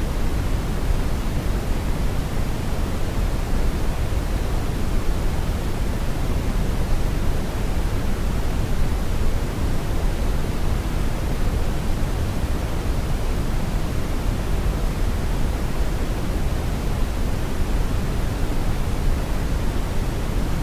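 Steady brown noise: a deep, even rushing hiss with most of its energy in the low end, unchanging throughout.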